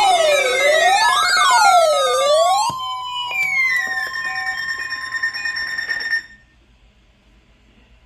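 Several weather alert radios sounding their alarms at once for a National Weather Service Required Weekly Test: a siren-like tone sweeping up and down, falling tones, steady tones and short repeated beeps, all layered together. They drop out one after another, and the last cuts off suddenly about six seconds in.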